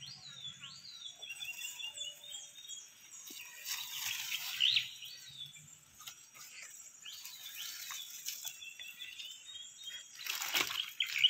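Wild birds chirping repeatedly, short high calls with quick falling sweeps, over the rustle of bamboo leaves and branches being handled, which is louder about ten seconds in.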